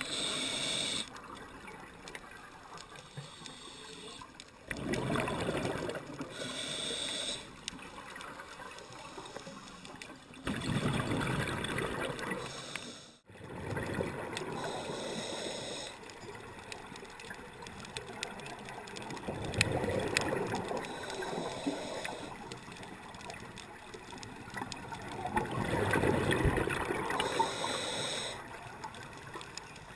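A scuba diver breathing through a regulator underwater, heard through the camera's waterproof housing. About five slow breaths, each a short hiss followed by a longer rush of exhaled bubbles.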